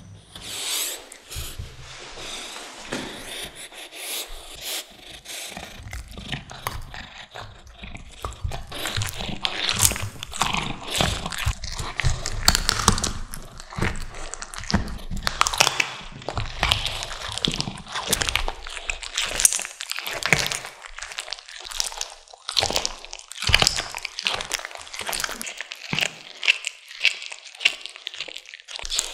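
A cat chewing and tearing at a raw duck leg, close to the microphone: a dense, irregular run of wet bites and crunches.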